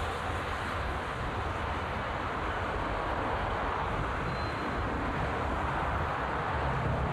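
Steady road traffic: vehicle engines running with a continuous low hum under the hiss of tyres on the road.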